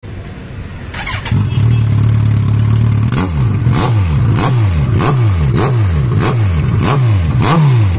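Kawasaki Ninja 1000's inline-four engine, run without its exhaust silencer, starting about a second in and idling briefly. It is then revved in quick throttle blips, eight of them about a second and a half apart or less, each rising sharply and falling back.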